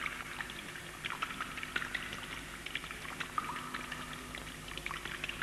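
Water splashing and bubbling in a scale-model wave basin, many small irregular drips and bubble blips, over a faint steady low hum.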